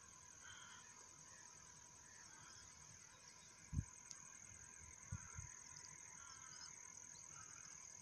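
Quiet open-air ambience: a faint, steady high insect trill with a few faint chirps, and a couple of brief low bumps about four and five seconds in.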